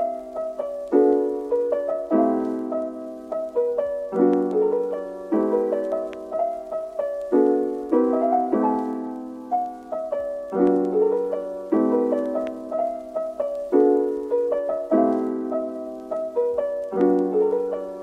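Background piano music: soft chords struck about once a second, each fading before the next.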